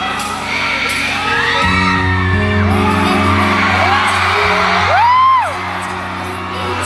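Slow ballad music through a concert hall's speakers, a low sustained chord coming in about a second and a half in, under fans screaming and cheering. One shrill scream close by rises and falls about five seconds in and is the loudest moment.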